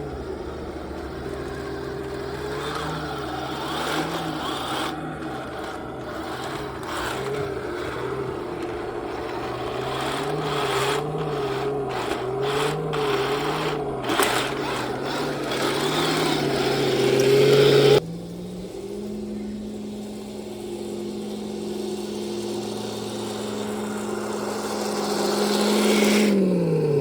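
Henglong RC T-72 tank's built-in sound unit playing a simulated tank engine, its pitch rising and falling as the tank is driven, with scattered sharp clicks. About two-thirds of the way through it switches abruptly to a steady, higher hum, which falls in pitch near the end.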